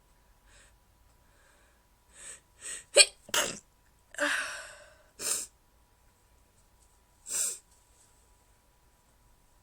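A person stifling sneezes: short catching breaths about two seconds in, then a sharp held-in sneeze about three seconds in, the loudest sound, followed by several more short suppressed bursts, the last near the end.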